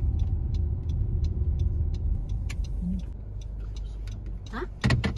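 Car cabin interior: low engine and road rumble while driving slowly, fading somewhat about halfway through. A short, loud noise near the end is the loudest moment.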